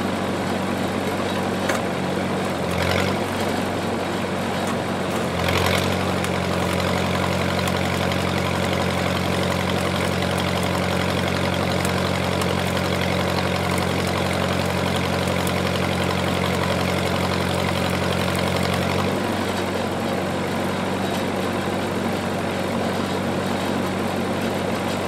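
Engine-driven welding generator running steadily. Its note changes as a welding arc loads it for about thirteen seconds in the middle, then goes back to the unloaded note.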